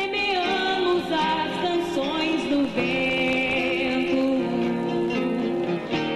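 Music: a song with guitar accompaniment and a singing voice.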